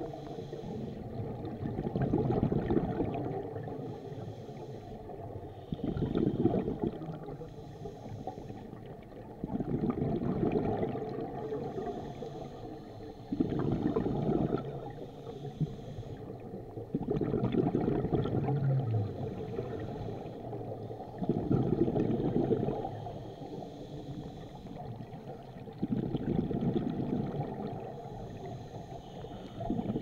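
Scuba regulator breathing underwater: a short hiss on each inhale, then a louder bubbling rush of exhaled bubbles, repeating about every four seconds.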